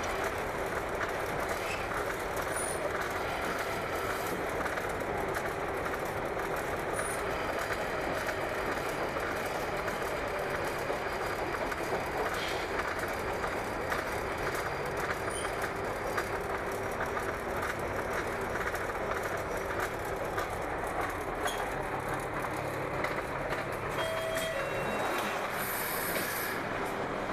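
London Underground Northern line train heard from inside the carriage, running through a deep tunnel with a steady rumble and rattle. Near the end it slows into a station, with brief squeals from the wheels and brakes.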